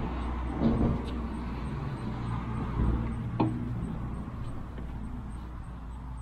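The heavy flywheel of a 1914 Fuller & Johnson 6 HP hit-and-miss engine being turned over by hand for a start, with a few clanks and a sharp click about three and a half seconds in, over a steady low rumble.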